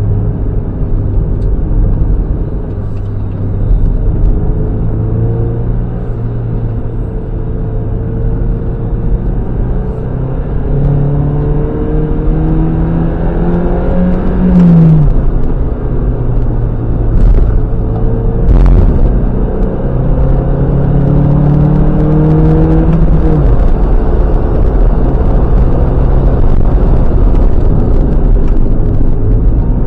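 Mazda MX-5 NB's 1.8-litre four-cylinder engine heard onboard at track pace over a steady road rumble. The revs climb and then drop sharply twice, about halfway through and again near three-quarters, as the driver shifts or lifts off. Two short knocks come in between.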